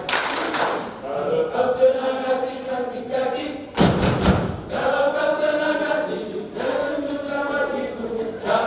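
Mixed choir of men and women singing in several parts, interrupted by heavy thumps at the start and again about four seconds in.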